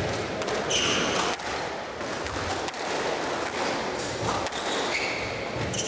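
Squash rally: the ball cracking off rackets and thudding against the court walls in repeated sharp knocks, with court shoes squeaking on the hardwood floor about a second in and again near the end.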